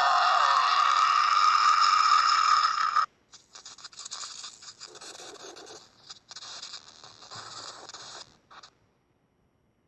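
Electronic sound effect: a loud sustained sound of several held pitches that cuts off suddenly about three seconds in, followed by quieter, broken scratchy static that stops near the end.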